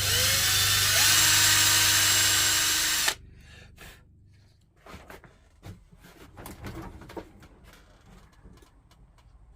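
Power drill boring into hardwood strips, its motor pitch rising as it spins up, then cutting off suddenly about three seconds in. Scattered light knocks and clicks follow.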